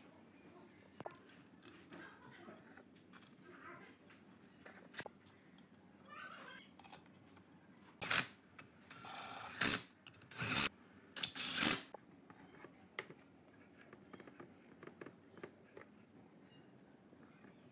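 Cordless impact wrench run in several short bursts, tightening the bolt on the end of an air compressor pump's crankshaft. Light clinks of metal parts being handled come before and after.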